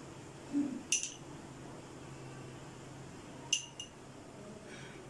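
A spoon clinking against a glass bowl while desi ghee is scooped out onto the rice: a soft thud then a clink about a second in, and two quick clinks about three and a half seconds in.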